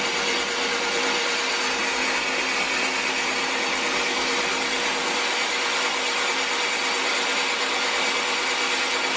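Toyota 5E-FE four-cylinder engine with forged internals and big camshafts running at its first start-up, a loud, dense, even noise that holds steady with no revving.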